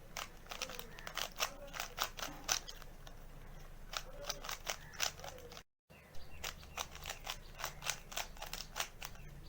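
Rubik's Cube faces being turned by hand, a fast, irregular run of plastic clicks and clacks as the layers snap round. The sound cuts out completely for a moment just under six seconds in.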